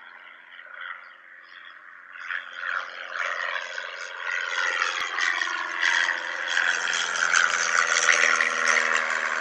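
Synthesized intro sound, a swelling electronic drone with a shimmering wash over it, growing steadily louder over several seconds.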